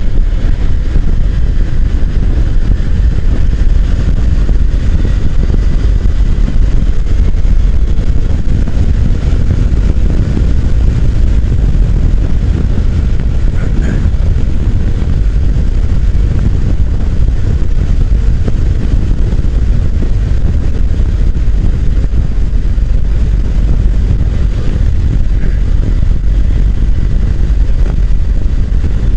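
Motorcycle on the move, heard from a bike-mounted microphone: a loud, steady, low rumble of wind rush and engine.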